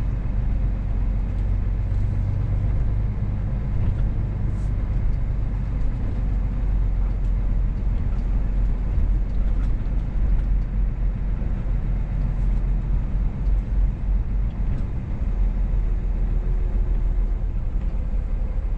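Scania S500 truck tractor unit driving without its trailer: a steady low engine and road rumble.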